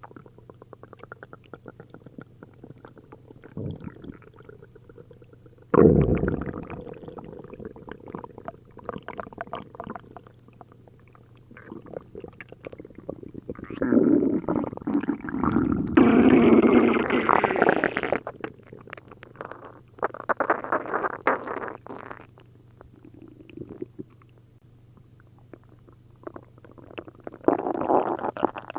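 Human stomach and intestines gurgling and rumbling in irregular bursts, with liquid bubbling through the gut; the loudest, longest stretch comes a little past halfway. It is an upset stomach after drinking a liter each of milk and prune juice.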